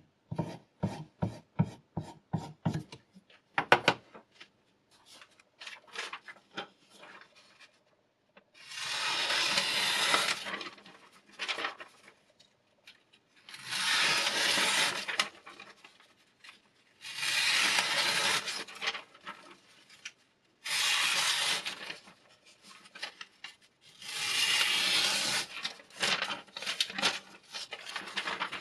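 Knife blade worked in long rasping strokes: five strokes of about two to three seconds each in the second half, after a run of quick, short strokes at the start.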